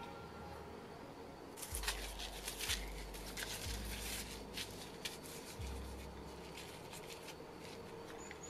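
Dry, crackly rustling as small seeds are rubbed and sprinkled from the hand onto bare soil, starting a couple of seconds in. A low drone runs underneath, shifting pitch a few times.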